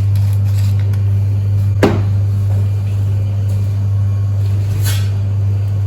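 A loud, steady low hum, like a motor or fan running, with two sharp clicks, one a little under two seconds in and one about five seconds in.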